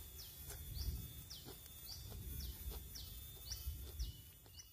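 A bird calling in a steady series of short, high chirps, about two a second, over a faint continuous insect drone.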